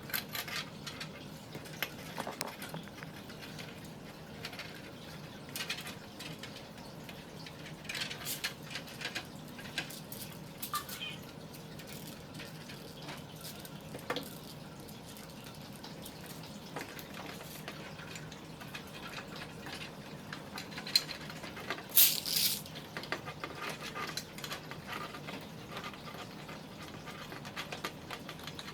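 Scattered small clicks, taps and rustles of hands handling PC components and power-supply cables, over a faint steady low hum; the loudest cluster of clicks comes about three-quarters of the way through.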